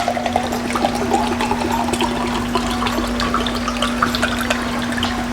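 Sinigang broth being slurped and sipped, with irregular wet splashing and clicking sounds of soup. A steady low hum runs underneath.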